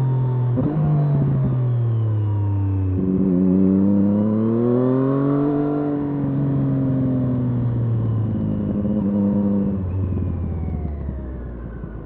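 Triumph Street Triple S three-cylinder engine through an SC Project SC1-R slip-on exhaust with dB-killer, heard on board. The revs fall off, jump up sharply about three seconds in, rise and ease back, hold, then die away as it slows near the end.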